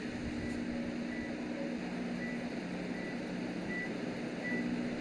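Steady mechanical engine hum with a short, high electronic beep repeating about once a second.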